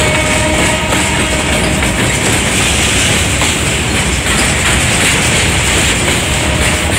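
Loaded freight hopper wagons rolling past on the rails: a loud, steady rumble of wheels on track. A ringing tone sounds over it and fades out about two seconds in.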